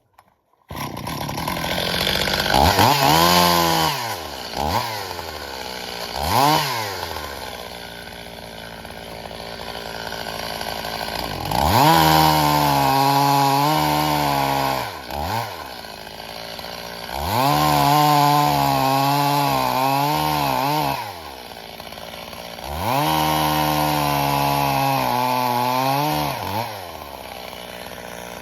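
Stihl MS 270 two-stroke chainsaw idling between runs at full throttle: a few quick throttle blips, then three long high-revving stretches of three to four seconds each as it cuts through birch logs. The sound cuts in abruptly after a split second of silence.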